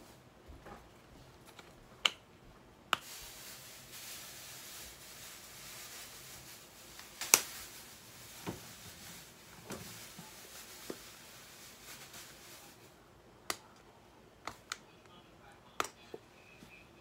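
Seasoning shaken from a shaker bottle over ground meat in a pan: a steady hissy rattle for about ten seconds, with sharp clicks from the shaker and its lid before and after.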